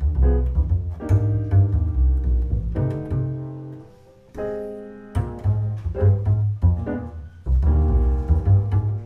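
Upright double bass played pizzicato in a jazz tune, its plucked low notes out in front, with piano chords behind. About four seconds in the bass stops briefly while a piano chord rings, then the plucked line goes on.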